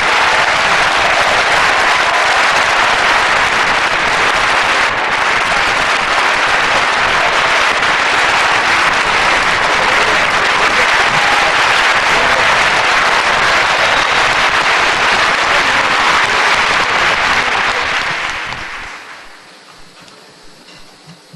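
Concert-hall audience applauding steadily, then dying away about eighteen seconds in to a quiet hall.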